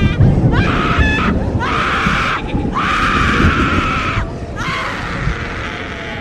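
Horror sound-effect screams: about five long, harsh screams one after another, each starting with a short upward slide, over a low rumbling background. The screams fade somewhat near the end.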